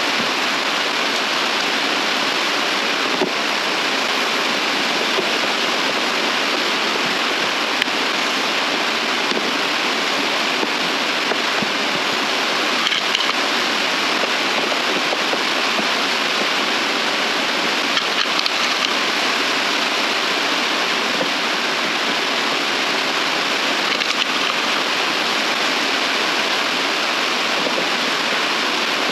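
A steady rushing hiss with no change in level, with a few faint clicks and taps from the plastic heater box being handled.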